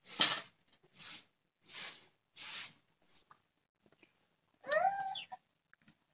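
Four short scrapes from the steel plate of rice and soybean curry, about two-thirds of a second apart. Then, about five seconds in, a domestic animal's short cry that rises and falls in pitch.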